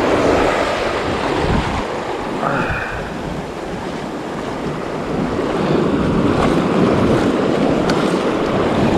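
Waves surging and washing over shoreline rocks, with wind buffeting the microphone.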